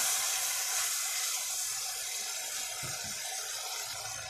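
Watery spice masala sizzling and bubbling in a pot on the stove: a steady hiss that eases slightly. A spatula stirs it at first.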